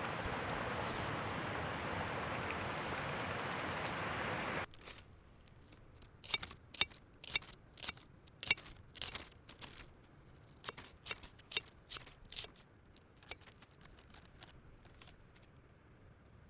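A steady rushing noise that cuts off suddenly just under five seconds in. After it come scattered sharp clicks and snips, a few a second, like small handling or cutting sounds.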